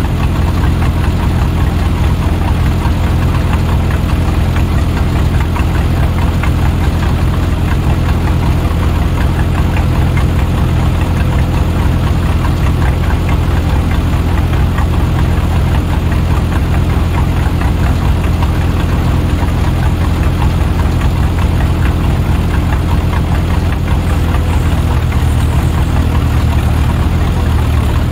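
A vehicle engine running steadily at an even speed, with a slight change in pitch near the end.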